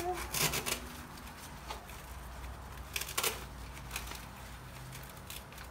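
Artificial fall foliage and small pumpkins rustling as hands shift them in a bicycle basket, with brief crackles about half a second in and again about three seconds in.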